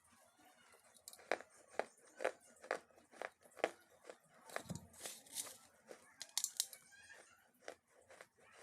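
Crisp crunching, about two sharp crunches a second, then a couple of longer crackling, tearing crunches after the middle.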